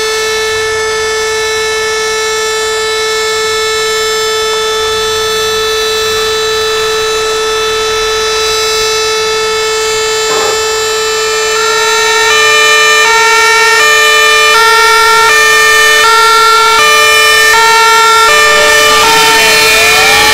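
A fire station's alarm siren sounds one steady, unbroken tone, calling out the volunteer crews. From about twelve seconds in, a fire engine's two-tone siren alternates high and low over it and the sound grows louder. Near the end the pitch briefly swoops down and back up.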